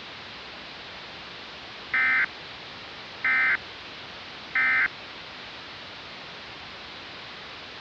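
Emergency Alert System end-of-message signal: three short digital data bursts, each about a third of a second long and spaced about 1.3 s apart, over a steady hiss.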